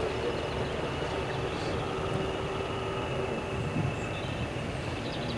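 Preserved diesel locomotive running light, heard at a distance as a steady low engine rumble with a held hum that stops about four seconds in.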